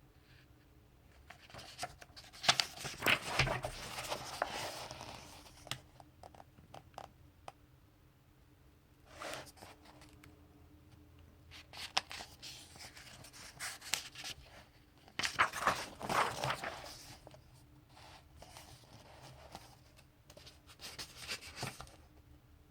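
Pages of a graphic novel being turned and handled: a series of paper rustles and flaps with quieter gaps between them. The longest, loudest rustles come a couple of seconds in and again past the middle.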